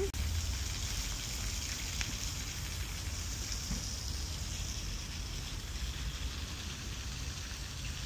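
Steady splashing of a small waterfall pouring from a rock grotto into an artificial pond, with a low rumble underneath.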